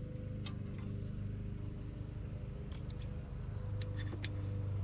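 Scattered light metallic clicks of needle-nose pliers and a brake shoe return spring against the drum brake's shoe and backing plate as the spring is worked into its hole, over a steady low hum that grows louder near the end.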